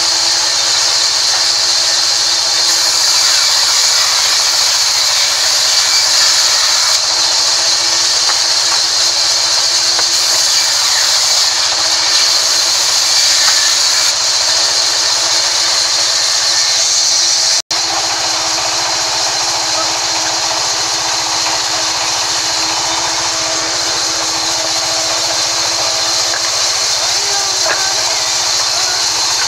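Sawmill band saw running and cutting through mahogany timber: a loud, steady hiss of the blade in the wood over a continuous machine hum. The sound breaks off for an instant about two thirds of the way through.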